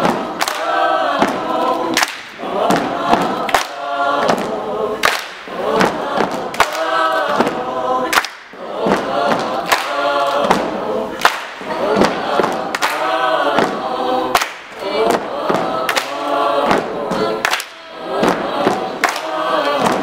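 Mixed choir of young voices singing an upbeat song, with sharp, evenly spaced beats about once a second.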